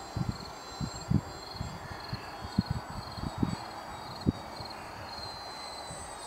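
Outdoor field ambience: irregular low thumps of wind buffeting the microphone, over a steady high chirping of insects.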